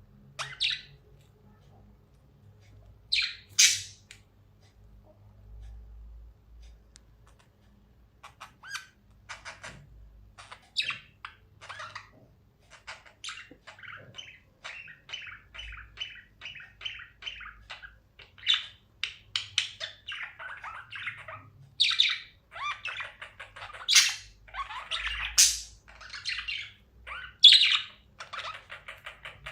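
Budgerigars chirping and chattering. A few scattered chirps come first, then a steady run of quick chirps and warbles with sharper, louder calls near the end.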